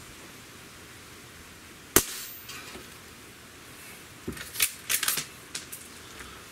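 Umarex Legends Cowboy CO2 lever-action rifle firing one shot, a single sharp crack about two seconds in. A couple of seconds later comes a quick run of metallic clicks and clacks as the lever is cycled, ejecting the spent shell and chambering the next.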